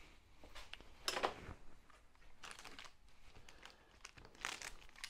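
Plastic parts bag crinkling as it is opened and handled, in a few short, faint rustles, the loudest about a second in.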